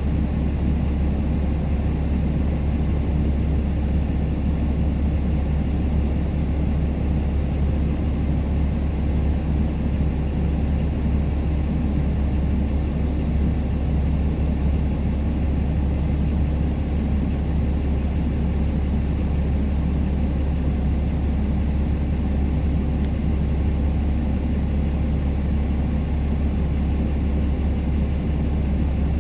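Pickup truck driving, a steady low rumble of engine and road noise.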